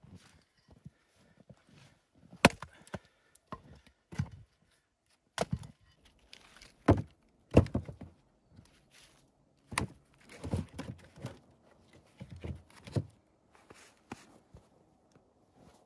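Split firewood logs knocking together as they are picked up and loaded into a plastic sled: irregular wooden clunks, a dozen or so, with handling rustle between them.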